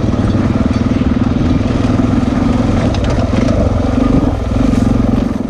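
Suzuki dual-sport motorcycle's single-cylinder four-stroke engine running steadily at low speed, heard from on the bike, with a brief dip in its note about four seconds in.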